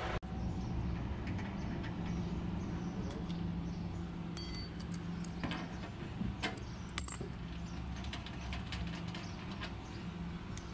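Irregular metallic clicks and clinks of an adjustable wrench on the brass flare-nut fittings of an air conditioner's refrigerant lines, over a steady low hum.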